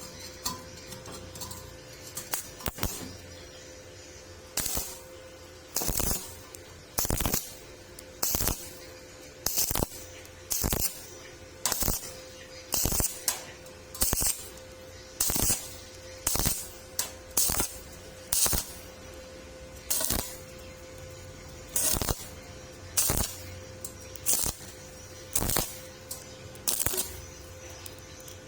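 Stick (arc) welding on thin 1.2 mm steel square tubing, the arc crackling in short bursts about once a second as the electrode is struck and broken in a stitch rhythm, with a steady hum underneath.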